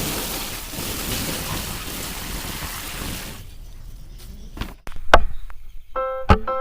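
Water rushing and splashing for about three and a half seconds, then fading. Near the end come a few sharp clicks and keyboard music notes.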